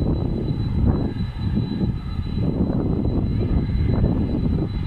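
A jet airliner's engines at takeoff power during its takeoff roll: a low, rough rumble that runs on steadily.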